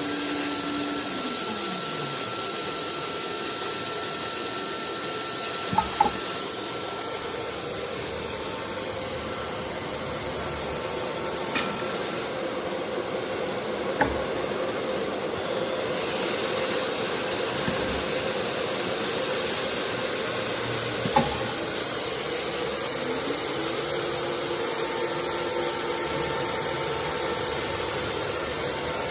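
ATC CNC router at work with a steady hiss of air and machinery. The spindle's whine winds down about two seconds in, a few sharp clicks and knocks follow, and the spindle winds back up to speed near the end.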